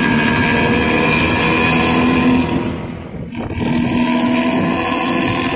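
Large bus's engine running steadily, with a short dip in level about three seconds in.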